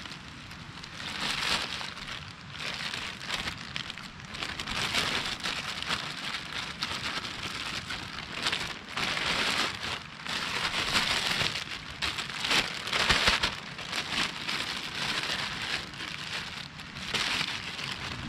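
Plastic bag crinkling and rustling as it is handled, in irregular swells of a second or two, full of fine crackles.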